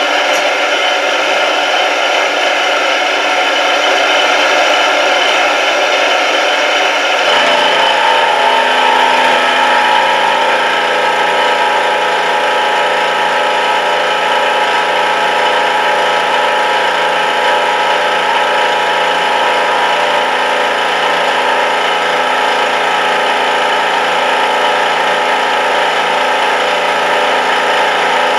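Indexable APMT 1003 end mill taking a 2 mm deep cut in steel on a small CNC mill: a steady cutting and spindle noise made of many held tones. About seven seconds in, a lower tone joins and the cut grows louder.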